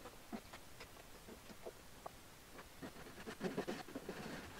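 A few light knocks as the workpiece is set on the bench, then a hand rip saw cutting along the grain, starting about three seconds in: quick, rasping strokes that grow louder toward the end, played back sped up.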